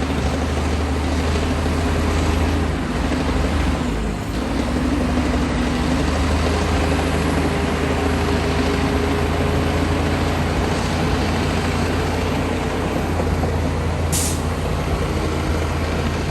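Komatsu D60P crawler bulldozer's diesel engine running steadily under working load, its note dipping briefly about four seconds in. A short hiss is heard near the end.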